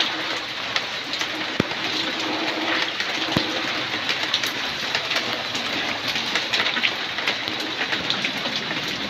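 Torrential rain pouring down: a steady rush of rainfall with close drops ticking and splashing. There are two brief low knocks, one a second and a half in and another about three and a half seconds in.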